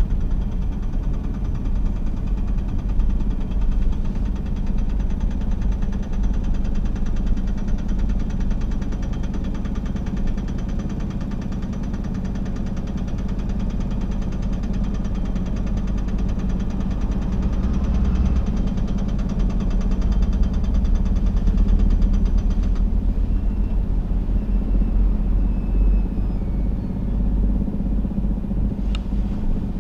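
Car engine and road noise heard from inside the cabin, a steady low rumble. A faint high whine stops abruptly about three-quarters of the way through, and there is a single sharp click near the end.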